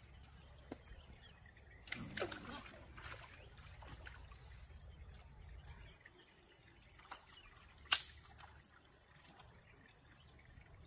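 Shallow stream water trickling and splashing as a wooden stick is poked and dragged through it among the stones. There is a louder stir about two seconds in and a single sharp knock about eight seconds in.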